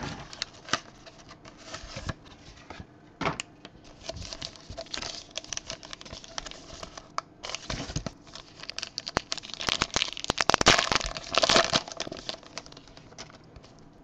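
Trading-card packaging handled and opened by hand: the crinkle and tear of a cardboard hanger box and its printed card-pack wrapper, with scattered sharp crackles that get busier about two-thirds of the way through.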